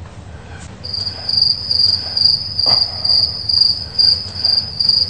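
High-pitched, cricket-like chirping: one steady tone pulsing a few times a second, starting about a second in, with a single sharp click near the middle.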